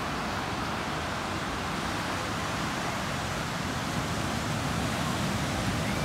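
Steady, even rushing noise of heavy ocean surf breaking on the beach.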